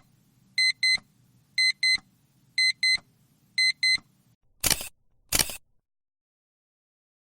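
Digital alarm clock beeping in quick pairs, about once a second, four times over a faint low hum. Then two short, sharp noisy clicks about 0.7 s apart.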